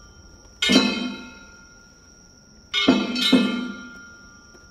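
Metal gong of the festival's hayashi band struck in a slow beat, each stroke ringing and fading over about a second: once near the start, then twice in quick succession about three seconds in.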